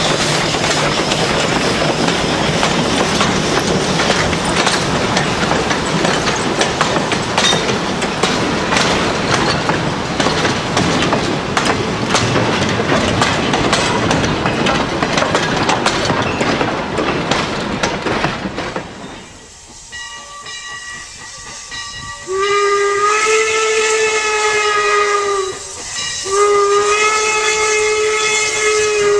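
Open excursion cars and a wooden caboose rolling past on the rails, a steady rumble with wheel clicks. After a break, the steam whistle of the Central Pacific #63 'Leviathan' replica 4-4-0 locomotive sounds two long blasts, each rising slightly at the start and then holding one chord-like pitch.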